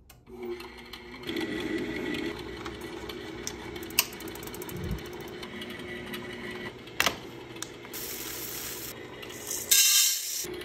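ARC 800G coffee roaster running, its motors humming steadily with mechanical rattling and clicking. Near the end comes a brief loud rush of green coffee beans being poured into the hopper.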